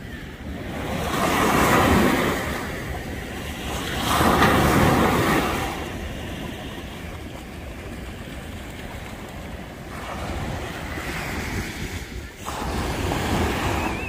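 Atlantic Ocean surf: small waves breaking and washing up the sand, swelling loudest twice in the first six seconds and again near the end, with wind rumbling on the microphone underneath.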